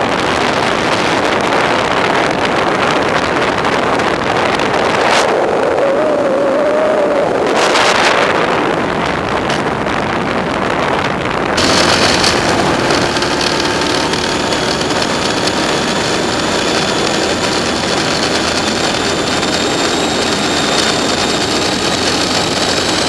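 Wind rushing over the microphone of a moving motorcycle, with its engine running underneath. About halfway through, the sound changes abruptly and steady whines join the wind.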